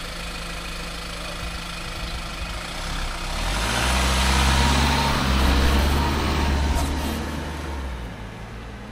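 Iveco minibus engine idling at a stop, then revving up as the bus pulls away. The engine rises in pitch and grows louder for a few seconds, then fades as it drives off.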